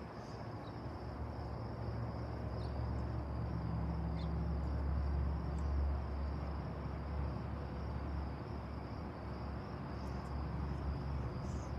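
Crickets chirping in a steady high drone over a low background rumble, with a few faint ticks.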